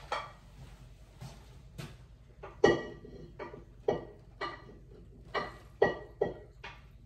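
Metal strainer and pot knocking and clanking against each other and the sink while spaghetti is drained: about ten separate knocks, each with a short metallic ring, the loudest a little under three seconds in.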